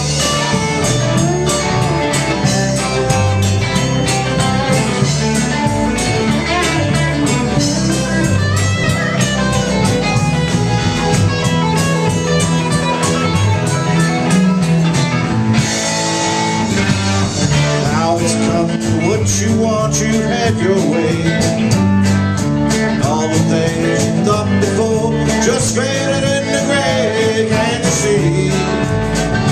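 Live rock band playing loudly, with a drum kit keeping a steady beat under electric and acoustic guitars.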